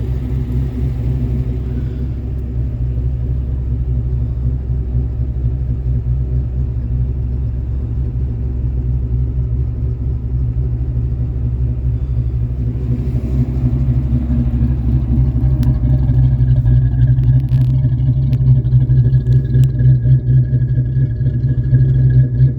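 Fox-body Ford Mustang's 5.0-litre V8 running at idle, steady throughout and a little louder over the last third.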